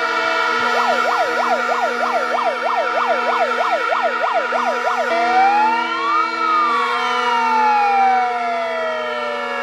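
Electronic siren sounding a fast yelp, about four sweeps a second, then switching about five seconds in to a slow wail that rises once and falls away slowly, over several steady held tones.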